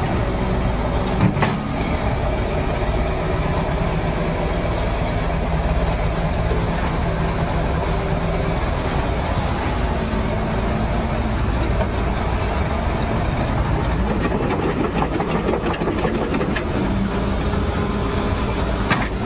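Diesel engines of a crawler bulldozer and an excavator running steadily while the bogged dozer is worked out of the mud, with a clank about a second in and the engine note shifting up and down in the second half.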